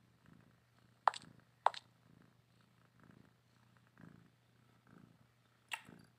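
A cat purring softly in a slow rhythm, about one purr breath a second. Two short sharp clicks come about a second in and one more near the end.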